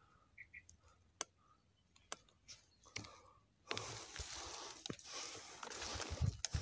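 A few soft clicks, then a bit past halfway a steady rustling of dry grass and handled gear as the scoped air rifle is swung about, with a couple of low thumps near the end.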